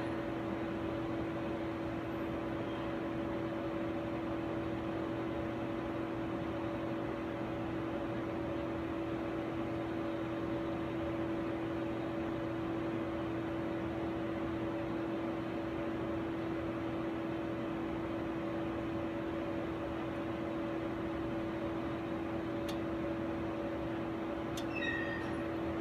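Steady machine hum: fan-like noise with a constant low tone and a fainter higher one. A couple of faint clicks and a brief high chirp come near the end.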